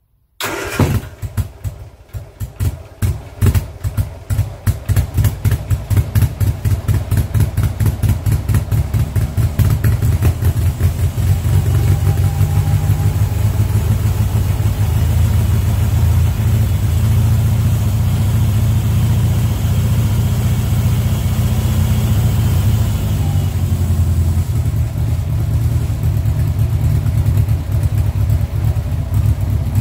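1098cc BMC A-series four-cylinder engine starting about half a second in on newly fitted electronic ignition, its ignition timing not yet set. It runs unevenly for the first several seconds, then settles into steadier but rough running, the roughness put down to an exhaust that is only one silencer can.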